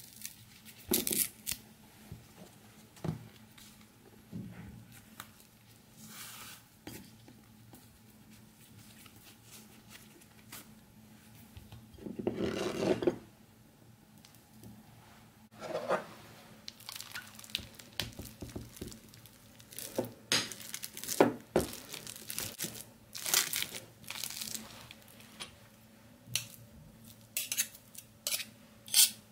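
Kitchen handling noises: a banana peel tearing as it is stripped, about twelve seconds in, then a metal potato masher and spoon mashing banana into oat flakes in a bowl, with repeated clinks and scrapes against the bowl.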